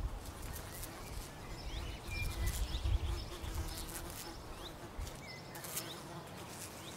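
Outdoor nature ambience: scattered short bird chirps over a low rumble that dies away about five seconds in, with a faint steady hum in the middle.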